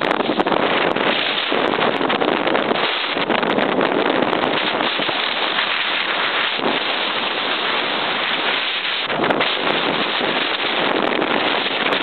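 Rushing noise of a snowboard run: wind buffeting a compact camera's microphone mixed with the board's base and edges scraping over packed snow. The hiss is steady and loud, easing for a moment every few seconds.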